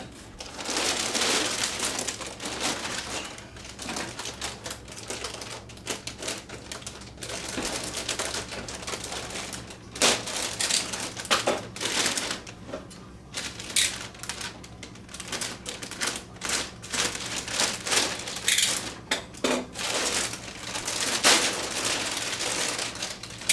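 Packing tape and wrapping being peeled and pulled off a model airplane's parts, making irregular crackles, rips and clicks.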